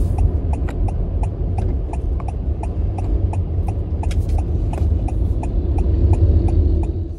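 Car turn-signal indicator ticking steadily, a little under twice a second, over the low rumble of engine and road noise inside the car's cabin while the car turns.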